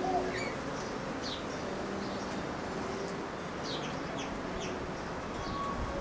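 Small birds chirping off in the garden: scattered short, high, falling chirps over a steady outdoor hiss, with the tail of a dove's coo at the very start.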